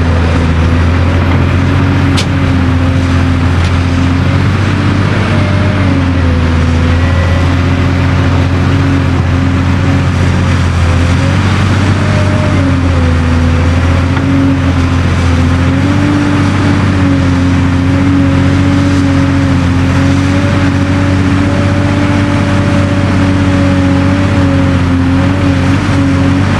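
Cat 385C LME large hydraulic excavator's C18 diesel engine running steadily under working load. Its pitch dips briefly a few times and then recovers.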